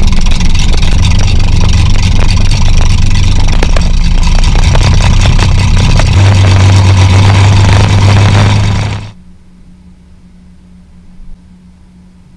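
Corvair 3.0 L air-cooled flat-six aircraft engine running with its propeller turning, run up for an ignition-timing check. It shuts down about nine seconds in and the sound cuts off abruptly.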